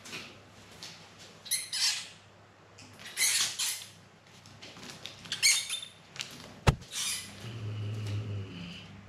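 A mouse caught by a cat squeaking in distress, in about five short, high-pitched bursts spread over several seconds. A single sharp tap comes about two-thirds of the way through.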